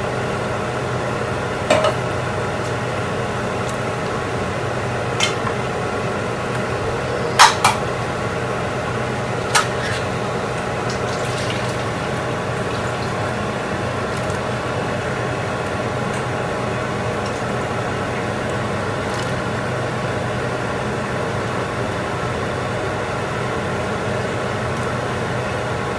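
Butter beans and a utensil clinking a few times against a large aluminium cooking pot as the beans are added, with two sharper clinks close together about seven seconds in. Under it, a steady mechanical hum.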